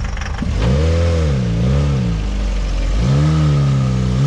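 Jeep Wrangler YJ engine revving up and down several times under throttle as it climbs a loose dirt trail. A thin, steady high whine joins it about three seconds in.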